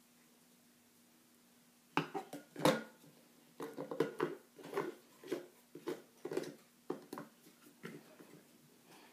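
Plastic lid of a stainless travel mug being twisted and worked by hand, making a quick run of short squeaky sounds and clicks that starts about two seconds in.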